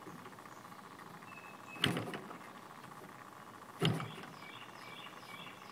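Two brief knocks about two seconds apart over a quiet background, with a faint steady high hum and a few short, faint high chirps.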